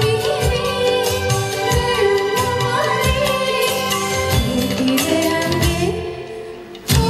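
Sinhala song with singing over music and regular drum beats. Near the end the music thins and dips for about a second, then comes back in with a sudden loud beat.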